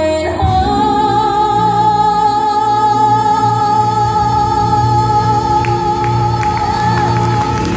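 A young woman's solo gospel voice, sung into a handheld microphone, holding one long high note with vibrato for about seven seconds, over sustained low accompaniment chords.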